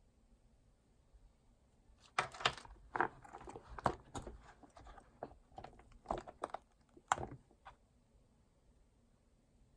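Hands handling small hard objects and crinkly material: a run of sharp clicks, taps and rustles that starts about two seconds in and stops near the three-quarter mark.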